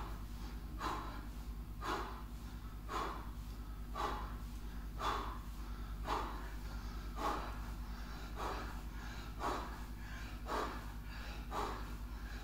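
A man breathing hard from exertion during fast bodyweight squats, a forceful puff of breath about once a second in a steady rhythm.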